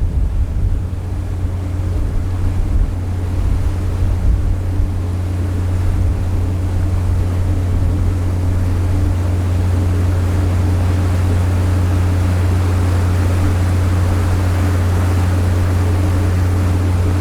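Steady low drone of the cargo-passenger ship Hahajima Maru's engine, with a hiss of rushing water and wind that grows louder from about six seconds in.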